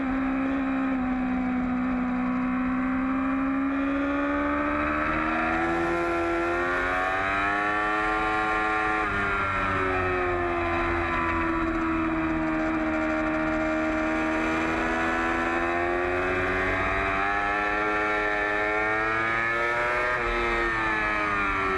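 2008 Yamaha R6 inline-four engine at high revs, heard on board during a race lap. The pitch sags, climbs to about nine seconds in and drops sharply, holds and rises again, then drops sharply once more near the end, over a steady rush of wind.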